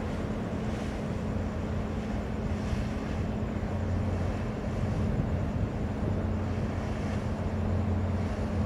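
Steady low drone of a large container ship's engines as it passes close by, two low hum tones over a wash of noise, with some wind noise on the microphone.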